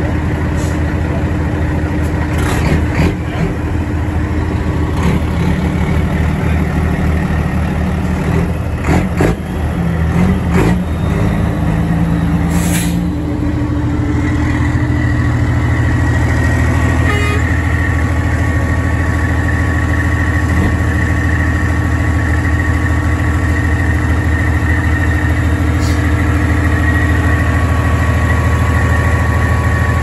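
Heavy turbocharged racing-truck diesel engines idling with a steady low drone. A few short sharp clicks and hisses come in the first half, and a steady high whine joins about halfway through.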